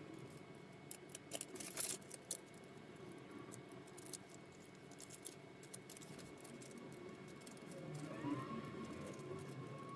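Cream cheese frosting being spread over a rolled-out pumpkin cake: faint scraping with small clicks of the utensil, most of them about one to two seconds in.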